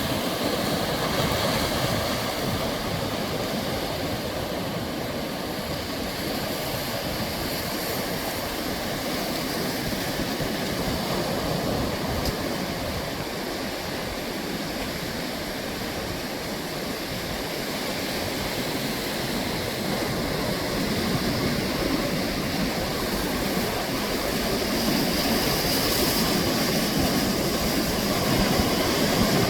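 Sea waves washing against the shore in a continuous rushing noise that swells slowly toward the end.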